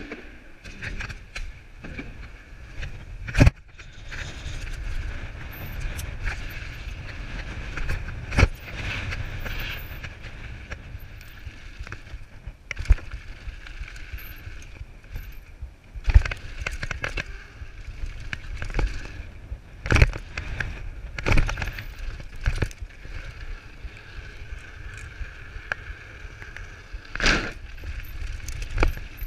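Downhill mountain bike ridden fast over rough dirt, heard from a camera on the bike or rider: a steady rumble of tyres and frame, broken every few seconds by sharp clanks and knocks as the bike hits bumps.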